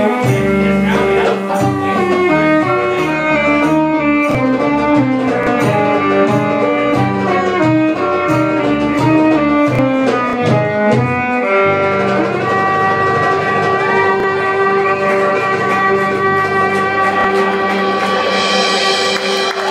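Live belly-dance band music led by violin, with plucked strings and bass. The first part is a quick rhythmic passage of short plucked notes. About two thirds of the way through it gives way to long held violin notes over a steady drone.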